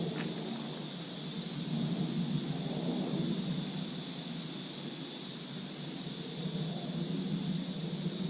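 A chorus of insects buzzing steadily, pulsing about four times a second, over a low, steady rushing noise.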